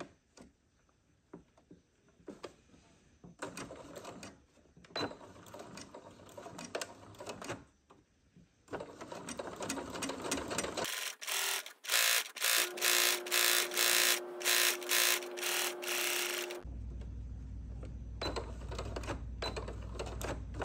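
Electric sewing machine stitching a row of shirring with elastic thread wound on the bobbin. The first seconds hold only soft clicks of fabric being handled. The loudest stretch, about halfway through, is a run of sharp, regular clacking, and near the end the machine runs steadily.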